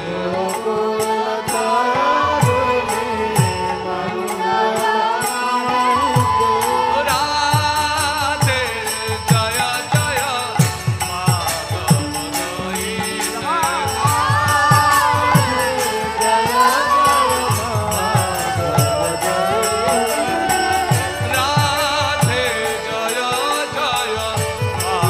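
Devotional kirtan: a man sings the lead over a harmonium, with steady two-headed mridanga drum strokes and a light, regular high percussion beat.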